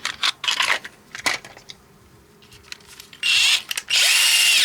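A few light clicks and handling of plastic parts, then a small electric drill motor runs twice in short bursts, each starting with a rising whine as it spins up.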